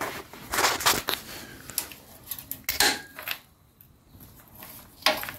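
A few short metallic clinks and rattles from parts of a 50cc mini chopper being handled, with a quieter spell a little past halfway.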